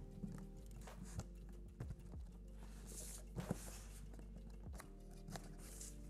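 Handling of a cardboard shipping box: scattered light taps and knocks of hands on the carton and brief rustles as the tape is slit and the flaps are lifted, over a faint steady low hum.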